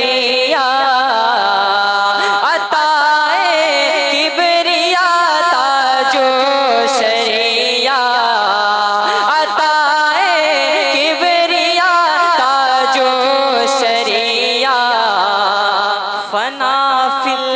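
A young male naat reciter singing into a microphone, unaccompanied, holding long ornamented notes that waver and glide in pitch, with short breaks between phrases.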